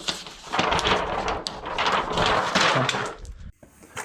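Pieces of a smashed LCD monitor being handled and shifted, plastic and metal parts clattering and rustling with a few sharp clicks, stopping abruptly near the end.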